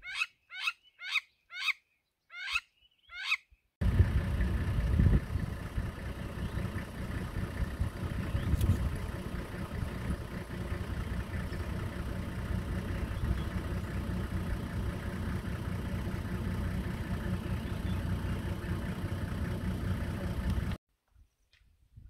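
Crowned lapwing giving a quick series of about eight sharp, repeated calls. Just under four seconds in, these give way abruptly to a steady low rumble and hiss that cuts off shortly before the end.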